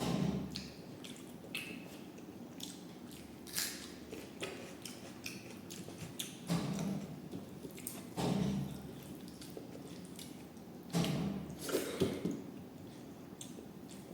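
A person eating rice and dal close to the microphone: wet chewing and smacking, a string of short moist clicks with a few louder, wetter bursts.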